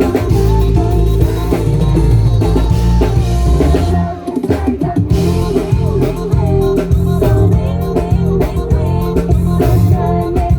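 Loud pop music over a sound system, with a steady drum-kit beat and a melody line; the beat drops out briefly about four seconds in, then comes back.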